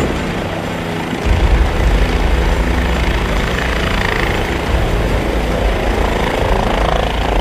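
Light helicopter hovering low and settling toward the ground: steady rotor and turbine noise with a heavy low rumble that grows louder a little over a second in.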